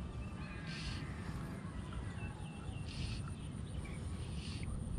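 A bird calling outdoors in short harsh calls, three of them a second or two apart, over a steady low rumble.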